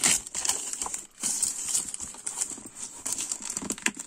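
Plastic courier mailer bag rustling and crinkling as it is torn and peeled away from a cardboard box, with irregular small clicks and taps.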